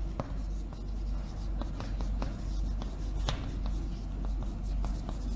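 Chalk writing on a blackboard: a quick, irregular run of taps and short scratches as the chalk strokes out characters, over a steady low hum.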